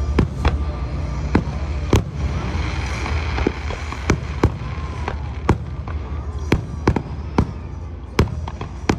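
Fireworks display: a rapid, irregular string of sharp bangs, about fifteen of them, over a steady low rumble.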